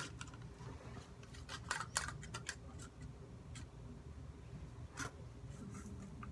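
Slime mixture being stirred in a container: scattered short clicks and scrapes of the stirring utensil, over a steady low hum.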